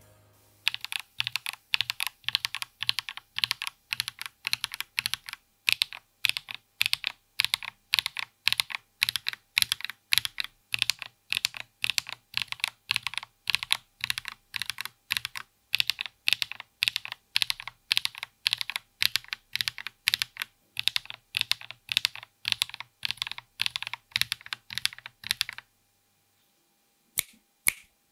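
Linear mechanical keyboard switches (WS Gold Arowana) on a Zoom75 TIGA keyboard with an aluminium plate and no foam, pressed and released one key at a time in an even rhythm of about two strokes a second. The pressing stops shortly before the end, after which there are two last clicks.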